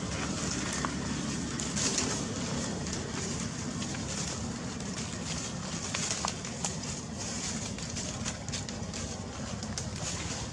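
Steady outdoor background noise, a low rumble with a hiss above it, dotted with faint scattered clicks and a couple of brief chirps.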